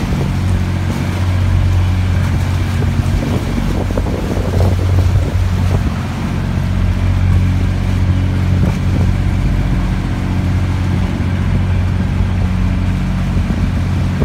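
A small boat's engine running steadily at low speed, a deep, even hum.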